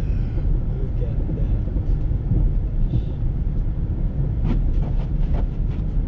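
Steady low rumble of a car's engine and tyres on a snow-covered road, heard from inside the cabin, with a few short clicks and knocks near the end.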